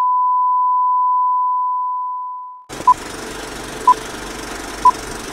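A steady high-pitched test tone, the kind played with TV colour bars, fades out and stops a little over halfway through. Then a steady hiss starts, and the beeps of a film-countdown leader sound once a second, three times.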